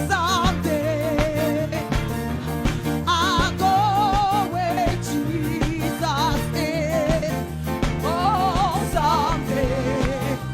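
Gospel singing with band accompaniment: a single voice holding long notes with a wide vibrato over a steady bass line and drumbeat.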